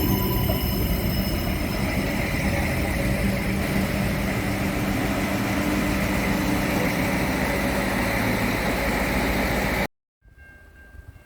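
Train running, with a steady low drone under a dense rumbling noise. It cuts off suddenly near the end at an edit, leaving a much quieter background.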